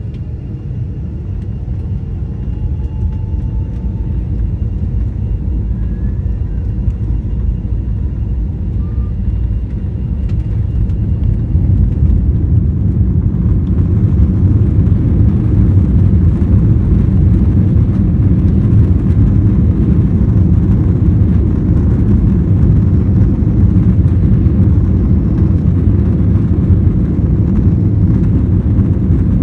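Cabin noise of an Airbus A321-231's IAE V2500 jet engines and the aircraft rolling on the runway, a low rumble that swells over about the first twelve seconds as power comes up, then holds steady.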